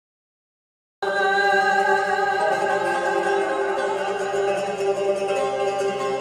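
Azerbaijani mugham ensemble music on tar and kamancha, cutting in abruptly about a second in after dead silence.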